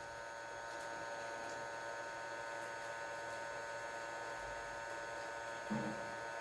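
Hot-air rework station blowing over a chip on a circuit board, a steady hum with a faint hiss. A short low sound comes near the end.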